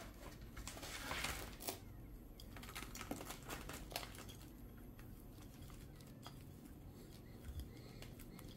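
Fingers pressing and working gritty bonsai soil into a shallow ceramic pot around a juniper's roots: a faint crunching rustle with scattered small clicks of grains, loudest about a second in.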